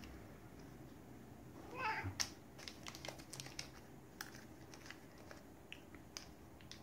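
Siberian cat giving one short, soft meow about two seconds in, begging for a treat, followed by a scatter of light clicks and taps.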